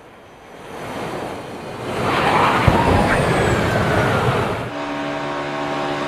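NASCAR stock car racing: the noise of the cars swells to a loud rush with one sharp knock about two and a half seconds in. It then switches abruptly to the steady drone of a stock car's V8 engine.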